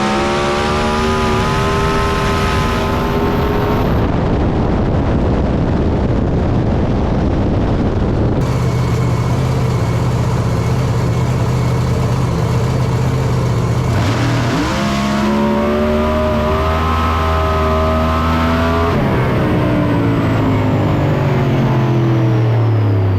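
Screw-supercharged Hemi drag car engine running hard at full throttle. Its pitch rises at the start and again about two-thirds of the way through, then falls near the end, with abrupt changes between shots.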